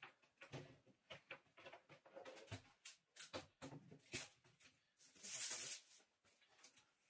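Faint handling sounds of pine boards and a long metal rule on a cabinet top: light knocks and taps at irregular moments, with a short scraping sound a little past the middle.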